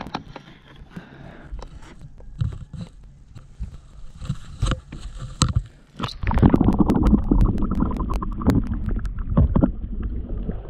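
Faint water and handling clicks. About six seconds in, the camera goes underwater and the sound changes suddenly to a loud, muffled underwater rushing and gurgling as a smallmouth bass is held in the water.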